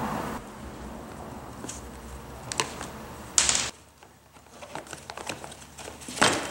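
Handling noise from hands and a tool working on the plastic housing of a suitcase's telescoping handle: scattered light clicks, with two louder scrapes, about three and a half seconds in and near the end.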